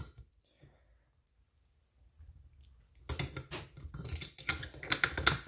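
A quick run of metallic clicks and rattles from a folding hex-key set being worked against a muffler bolt on a small engine, as the bolt is cranked tight. It starts about three seconds in, after a near-silent pause.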